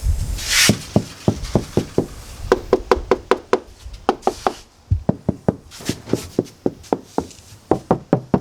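Door handles of a Toyota Corolla AE92 rattling as they are worked by hand: an irregular run of sharp clicks and knocks, several a second, some with a short ringing note. There is a brief hiss about half a second in. The handles are the one rattle left in the freshly sound-deadened door.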